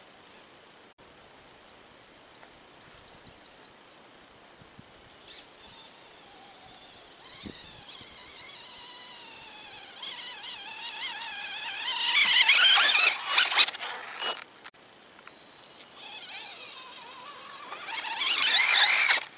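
Electric motor and gear drivetrain of an Axial Exo Terra radio-controlled buggy whining, the pitch rising and falling with the throttle as it climbs. The whine swells to its loudest about twelve seconds in, breaks off, and builds again near the end before cutting off sharply.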